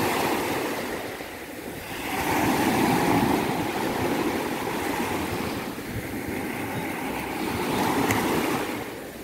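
Sea waves breaking and washing onto a beach, the surf swelling about two seconds in and again shortly before the end, falling back in between.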